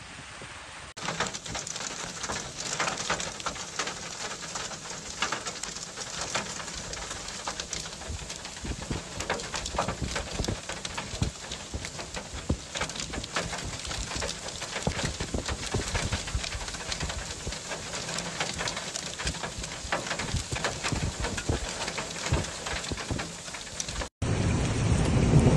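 Hail and rain pelting the ground: a dense, steady patter of many small hits. It gets louder and heavier near the end.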